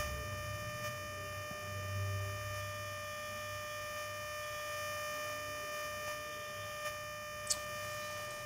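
A steady electrical hum-whine, one pitch with a stack of even overtones, with a short sharp click about seven and a half seconds in.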